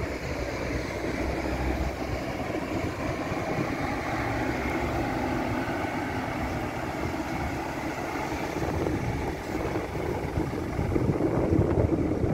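Road traffic: cars passing, then a Scania P360 fire engine's diesel engine approaching, growing louder near the end.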